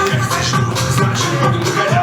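Upbeat electronic dance music playing, with a steady beat and bass.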